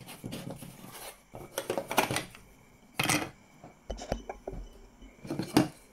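Wooden toy railway track pieces being picked up and set down on a table: a run of irregular wooden clacks and knocks, several in quick clusters.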